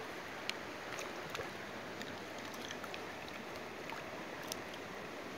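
River water running steadily, with a few faint scattered clicks.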